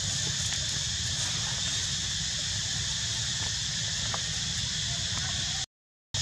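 Steady high-pitched drone of an insect chorus, with a low rumble underneath. The sound cuts out completely for about half a second near the end.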